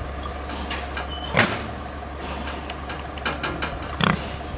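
Pig barn sounds: pigs shuffling and grunting, with a sharp knock about a second and a half in and a few lighter clicks later, over a steady low hum.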